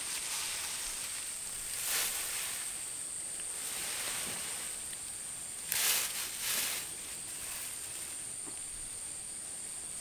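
Steady high-pitched insect drone, with short rustling swishes about two seconds in and twice around six seconds in.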